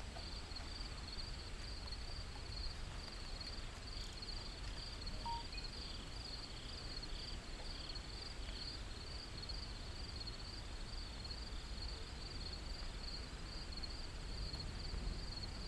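Insects chirping in a steady, evenly pulsing high trill, over a faint low rumble.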